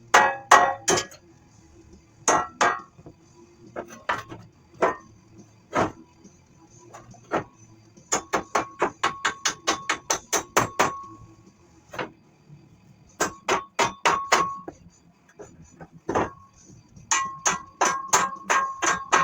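Hammer blows on steel: scattered single strikes and small groups, then runs of quick blows at about four or five a second, many with a short metallic ring.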